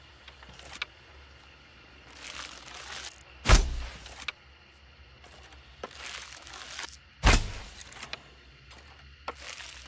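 Hunting bow and arrow shots, twice: each a second-long hiss followed by a sharp, loud thwack with a low thump. A few faint clicks come between the shots.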